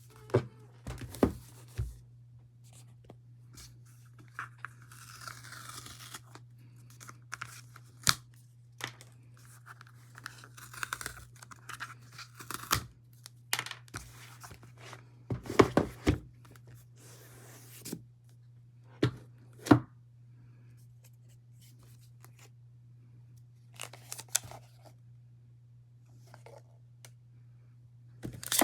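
Mac mini's cardboard box and packaging being opened by hand: paper tearing and rustling, with scattered knocks and taps, over a steady low hum.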